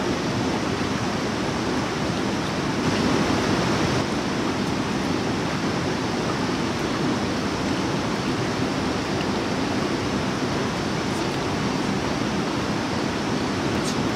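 Steady rush of spring water running and splashing, led off a stick into plastic jerrycans.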